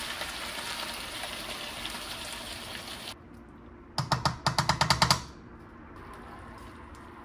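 Food sizzling in hot oil in a pan, a steady hiss that cuts off suddenly about three seconds in. About a second later comes a quick run of roughly eight sharp rattling clicks.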